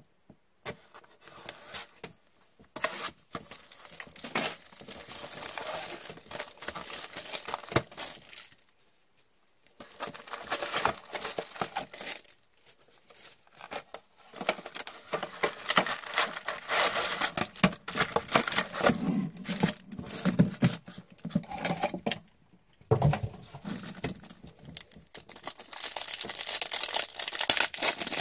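A folding utility knife slitting open a sealed cardboard trading-card box, followed by crinkling and rustling of plastic wrap and foil card packs as the box is opened and handled, on and off with short pauses. A foil pack is torn open near the end.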